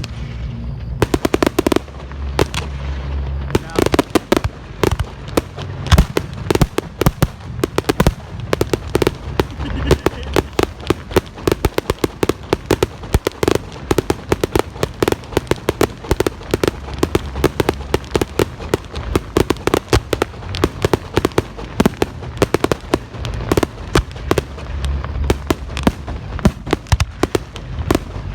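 Fireworks display going off in a dense barrage: many sharp bangs and crackling reports every second over a low rumble, without a break.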